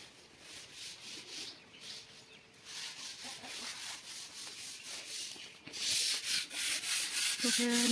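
A wall being sanded by hand: quick, rhythmic rubbing strokes, fainter at first and louder from about six seconds in. A voice starts near the end.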